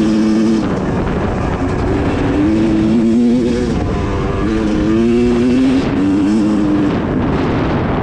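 Two-stroke Yamaha YZ250X dirt bike engine under hard riding, its pitch holding, dropping off and climbing again several times as the throttle is worked.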